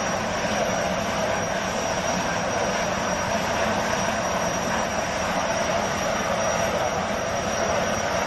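Jetfoil's gas turbines running at cruise: a steady rushing noise with a thin, high, steady whine over it.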